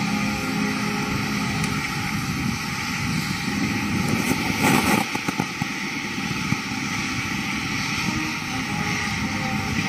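Military band playing a national anthem, heard under heavy rain and wind noise on the microphone, with sustained notes throughout. A louder rush of noise with a few knocks comes about halfway through.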